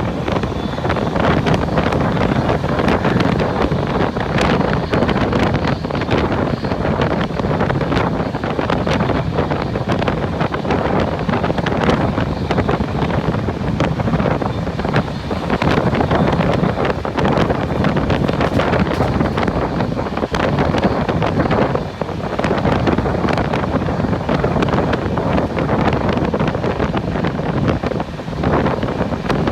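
Wind buffeting the microphone from a moving train, over the train's steady running rumble, with many small clicks and knocks scattered throughout.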